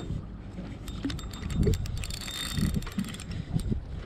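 Fishing reel being cranked to bring in a hooked fish, its gears giving a fast ticking, with wind buffeting the microphone.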